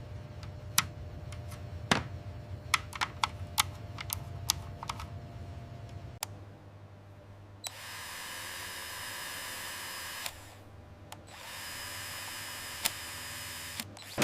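Scattered sharp clicks during keyboard assembly over a low hum, then a small power tool running steadily twice for about two and a half seconds each.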